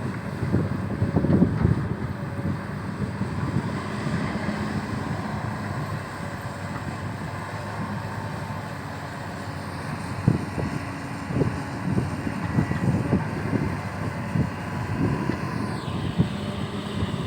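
XCMG XE215C excavator running, its engine a steady hum with a faint whine over it. Knocks and clanks come repeatedly in the second half, and a high whine falls away near the end.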